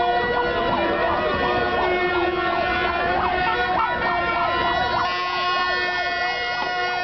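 Din of a passing street strike march: several steady, blaring horn notes held together, with many overlapping rising-and-falling wailing glides over them.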